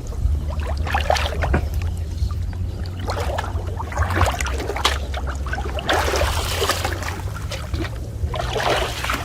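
Water splashing and sloshing in irregular bursts, over a steady low hum.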